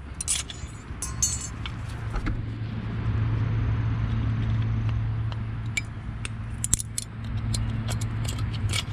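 Metal clicks and scrapes of a flathead screwdriver prying the old anti-rattle clips off a rusty brake caliper bracket, heard as scattered sharp clinks, the sharpest about seven seconds in. A steady low hum, like a vehicle engine running, sits under them from about two seconds in until near the end.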